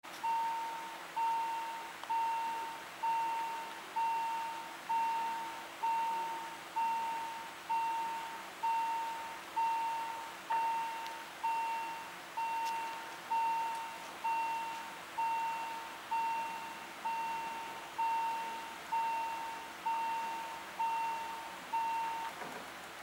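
Level-crossing warning bell ringing, one clear single-pitched strike about once a second, each fading before the next. It stops near the end, once the barrier booms are down.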